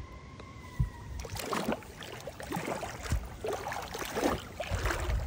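A metal detector's steady tone sounds for about the first second and cuts off. Then water splashes and sloshes irregularly as a sand scoop digs into the sandy bottom in the shallows.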